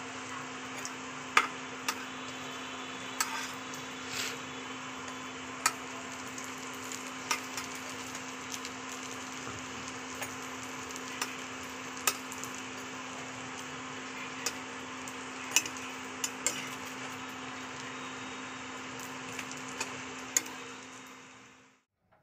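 Bread rolls shallow-frying in hot oil in a kadai: a steady sizzle, with a metal spatula clicking against the pan now and then as the rolls are turned. A steady low hum runs under it, and everything fades out just before the end.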